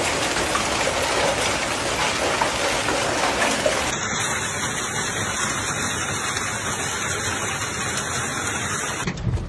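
Hail and heavy rain pelting down, a loud dense steady hiss and patter. The sound changes abruptly about four seconds in and again near the end as the recording switches.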